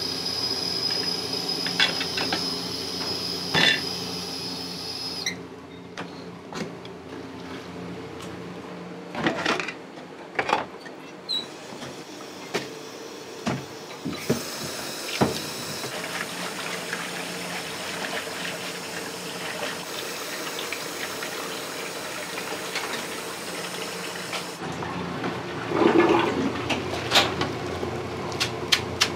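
Water running and rushing in a restaurant kitchen over a steady machine hum, with scattered knocks and clinks of kitchenware and a louder clatter near the end.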